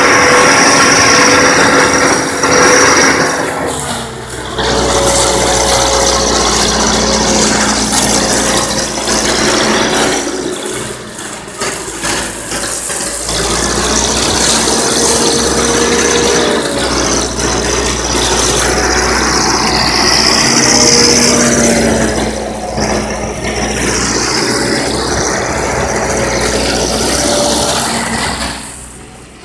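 Self-loading concrete mixer's diesel engine running with a steady low hum, its note shifting a few times as the hydraulic loading bucket is worked, and dipping briefly twice.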